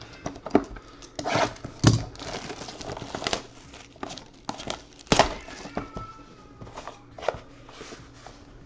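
Clear plastic shrink wrap being torn and crinkled off a sealed trading card box by hand: an irregular run of crackles and rustles, with the sharpest snaps about two seconds in and about five seconds in.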